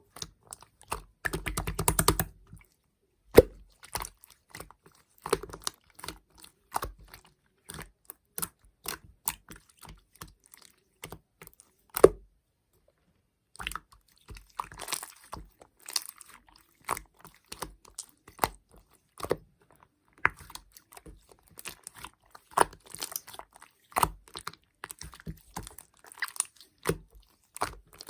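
Irregular small crisp clicks and crunches, now sparse, now in quick clusters, with a denser crackling stretch about two seconds in and a brief pause near the middle.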